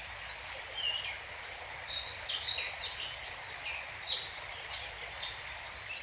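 Several woodland birds singing, a busy chorus of short, quick chirps and twittering phrases, over a steady background hiss.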